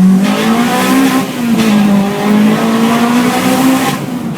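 Car engine revving hard and held at high revs, its pitch climbing at the start and then wavering up and down slightly at the top.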